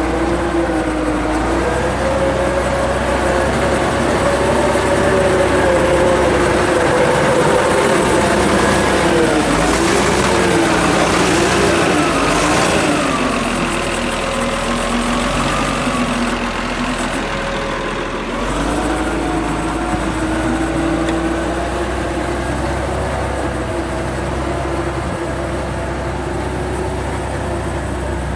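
Caterpillar D7F crawler dozer's diesel engine running at idle. Its pitch wavers, dipping and rising about a third of the way in and again past the middle.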